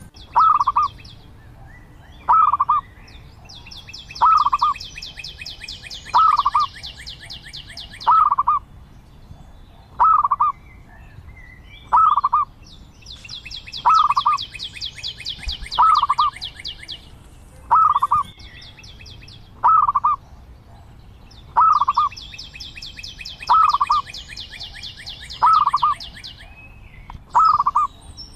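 Zebra dove calling: a short cooing note repeated about every two seconds. A fast, high-pitched trill from a second source runs beneath it in three stretches of about four seconds each.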